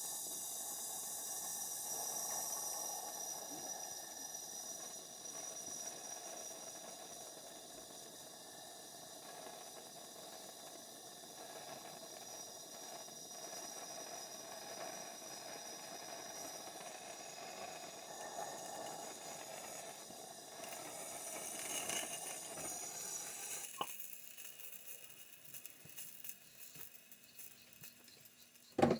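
Handheld soldering torch flame hissing steadily as it heats a soldered pipe joint on the valve, then cut off abruptly near the end. A sharp click comes right at the end.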